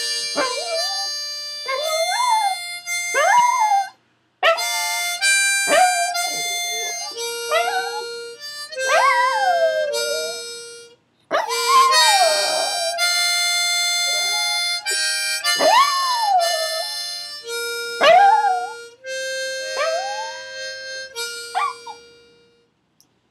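A small long-haired terrier howling along to long held musical notes. Its howls are short and come again and again, each rising and falling in pitch, with a couple of brief pauses. Both die away shortly before the end.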